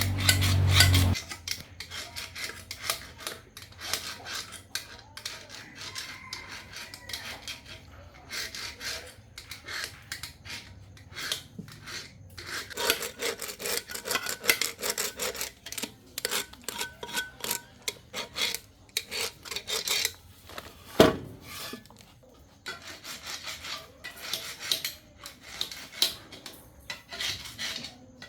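Irregular scraping and rubbing strokes of hand work on the corn thresher's parts. A low hum cuts off about a second in, and there is a single sharp knock near the three-quarter mark.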